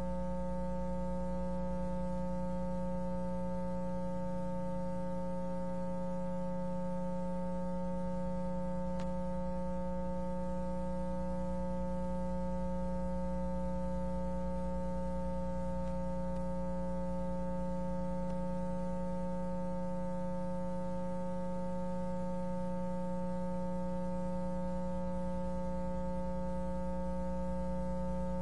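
Steady electrical hum with a buzzy stack of overtones, unchanging throughout: mains hum on the recording's soundtrack.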